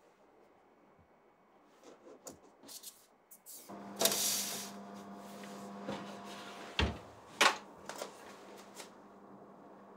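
Light taps of a perforated baking mat being handled, then a steady electric oven hum starts about a third of the way in. The tart ring on its mat is set onto the oven rack with a brief scrape, and the oven door shuts with a deep thump followed at once by a sharp click.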